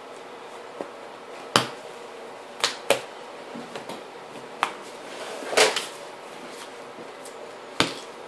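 Trading cards being handled in a Yu-Gi-Oh! match: about six sharp taps as cards are set down on the table, with a brief sliding rustle just past the middle.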